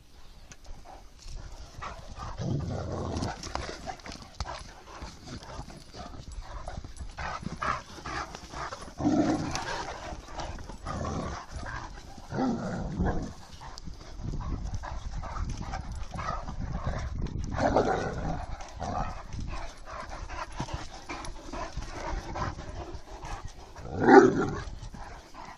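Great Danes scuffling and digging at a mouse hole in sandy earth, paws scraping and thudding, with several short barks breaking out; the loudest bark comes about a second before the end.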